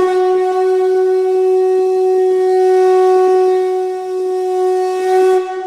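A wind instrument holding one long, steady note as a musical intro, easing off near the end.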